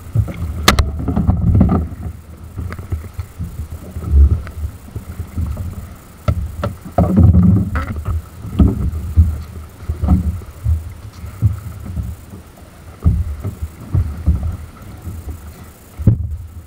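Choppy sea water slapping around a kayak, with wind buffeting the camera microphone in irregular low rumbling gusts. A few sharp knocks sound about a second in and again around seven to eight seconds in.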